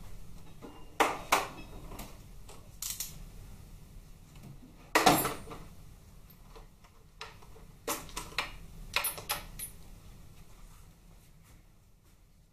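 Steel sockets and hand tools clinking and clattering as they are sorted through, a series of sharp separate knocks with the loudest about five seconds in, thinning out near the end.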